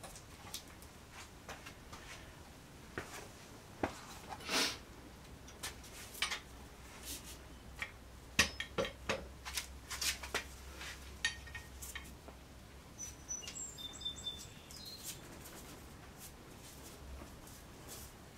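Scattered clicks and knocks from work on the threaded-rod clamps holding the glued-up stem knee lamination. A few short, high bird chirps come about two-thirds of the way through.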